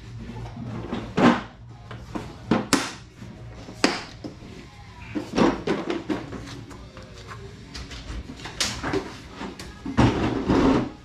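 Scattered sharp clanks and knocks of tools and parts being handled, with a louder clatter near the end as a drawer of a metal rolling tool chest is worked.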